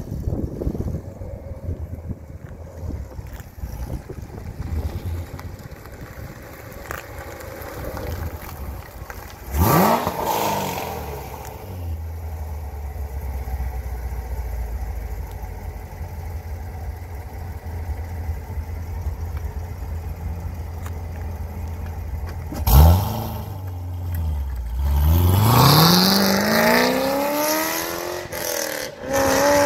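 Chevrolet C7 Corvette Grand Sport's 6.2-litre LT1 V8, breathing through long-tube headers and an off-road X-pipe with no catalytic converters, idling with a steady rumble and blipped sharply twice. Near the end it pulls away hard, the engine note climbing in pitch, dropping at an upshift and climbing again.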